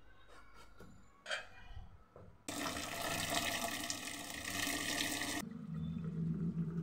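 Kitchen tap running a stream of water onto cut bottle gourd pieces in a steel pot in a steel sink. The water starts about two and a half seconds in and cuts off suddenly about three seconds later, followed by a steady low hum.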